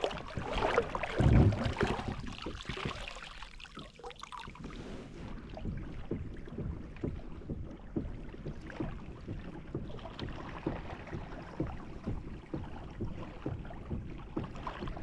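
Water lapping and splashing against the hull of a moving fishing kayak, with many small irregular splashes. In the first couple of seconds there is rustling and knocking of gear on the boat, with one low thump.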